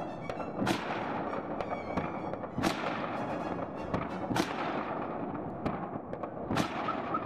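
Fireworks bursting over a city: four loud bangs roughly two seconds apart, each trailing a long rolling echo, over a constant haze of smaller distant pops and crackles.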